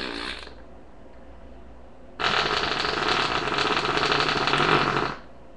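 Imitation fart noises made by a person: a short burst right at the start, then a long rasping one lasting about three seconds that starts about two seconds in and cuts off sharply.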